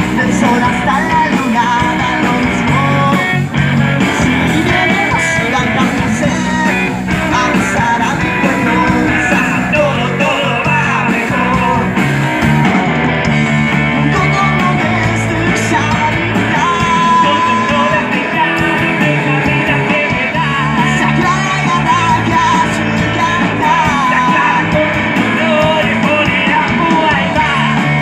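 Rock music with a singing voice, electric guitar and a steady bass line, played loud.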